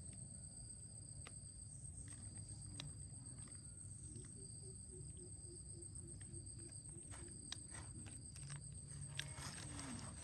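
Insects trilling steadily in a high, pulsing drone, with a second insect buzzing on and off. A short low call repeats about three times a second in the middle, over a faint low rumble and scattered small clicks.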